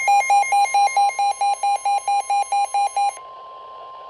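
NOAA Weather Radio warning alarm tone, a steady high tone. Over its first three seconds, a weather radio receiver's alert beeps rapidly, about five buzzy beeps a second, then stops and leaves the steady tone alone. The alarm signals that an urgent weather warning is about to be broadcast.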